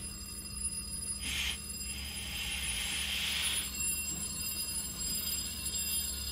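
Electric bell ringing inside a glass bell jar, muffled because much of the air has been pumped out, and growing louder as air is let back in. Air hisses in through the valve briefly about a second in, then again for a longer stretch after two seconds.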